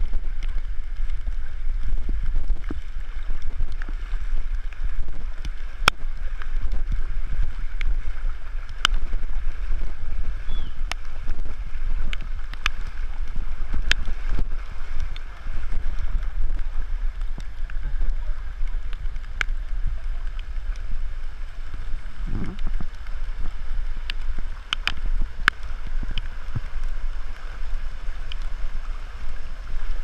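Floodwater sloshing and running through a flooded street, with a steady low rumble of wind on the microphone and scattered sharp ticks.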